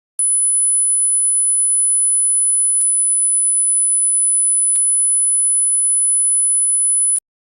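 Hearing-test tone: a steady, very high-pitched pure sine tone of about 10 kHz, held for about seven seconds and then cut off abruptly.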